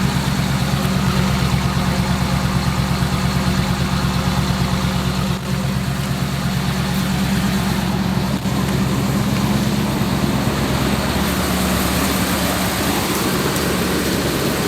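1984 Dodge camper van's engine idling steadily with an even pulsing beat, running smoothly just after being revived from two years of sitting.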